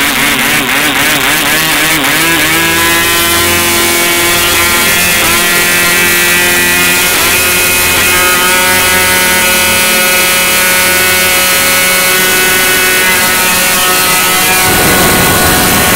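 Small model airplane engine running at high speed with its propeller turning, a steady high-pitched buzz. Its pitch wavers for the first couple of seconds while a hand is at the engine, then settles into a steady run.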